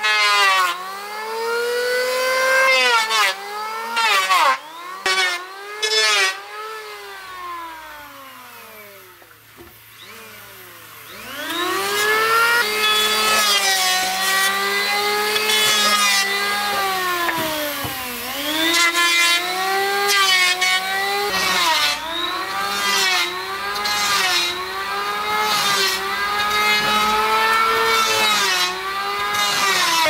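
A power tool's motor running hard through wood, its pitch sagging and recovering again and again as it bites in and frees up, with sharp knocks at some of the dips. It dies away for a few seconds about a third of the way in, then runs on more steadily with occasional dips.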